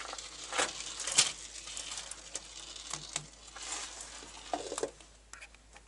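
Small plastic pearl beads clicking against each other and against a toy car as the car is set down and pushed into a heap of them; irregular light clicks throughout, with a few sharper ones about three seconds in and again near the end.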